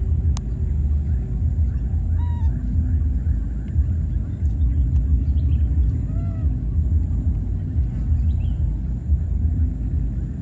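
Steady low rumble of wind buffeting the microphone, with a few faint, short calls over it that rise and fall in pitch, twice clustered about two and six seconds in.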